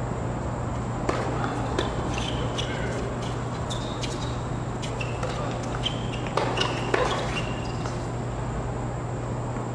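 Tennis rally on a hard court: several sharp racket strikes on the ball and short sneaker squeaks as the players move, over a steady low hum.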